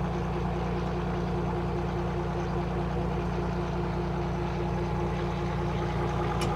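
Fishing boat's inboard engine running steadily at idle, a constant low drone with a steady hum.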